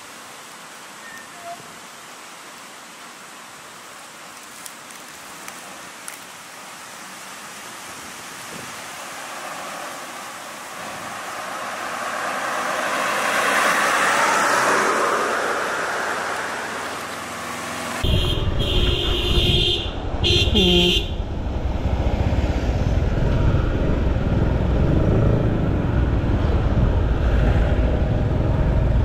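Road traffic: a passing vehicle's tyre and engine noise swells and fades, then a car horn gives two short blasts over a steady low rumble of engines and road noise.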